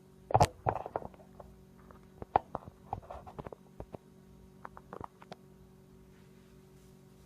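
Water being heated by a bare stainless-steel wire coil, giving off irregular pops, clicks and gurgles as bubbles form and collapse, with a sharper knock near the start. The sounds thin out and stop after about five seconds.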